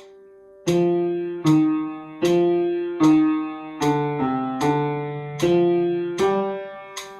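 The bass part of a hymn played as single notes on a plucked, guitar-like instrument: about nine notes at an even pace in three-time, each struck sharply and dying away, over a steady higher held tone.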